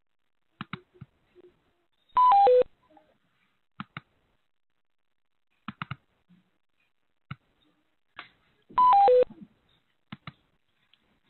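Video-conference software alert chime: three quick electronic tones stepping down in pitch, played twice about six and a half seconds apart, signalling a change of participants on the call. Faint scattered clicks sound between the chimes.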